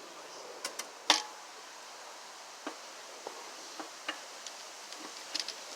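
Scattered light clicks and knocks of metal parts being handled as a pressure washer pump is worked onto the engine shaft. The sharpest knock comes about a second in, and a few softer ticks follow.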